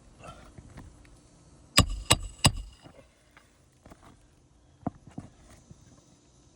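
Hammer strikes on a roof during shingle repair: three quick blows with a metallic ring about two seconds in, two lighter knocks later, and one more sharp blow at the end.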